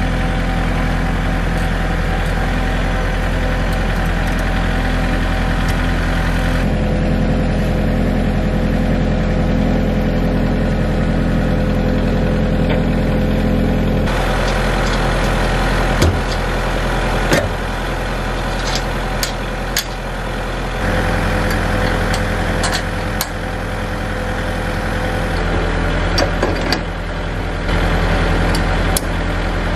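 Kubota tractor engine idling steadily, with sharp metal clanks and clicks in the second half as a rotary mower is hitched to its three-point linkage.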